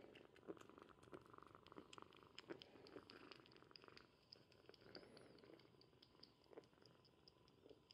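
Young calico kitten purring softly and steadily, with small clicks and rustles of fur and hands being handled.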